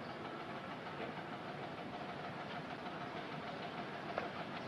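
Fishing boat's engine running steadily at low revs, a dull even drone with a few faint knocks.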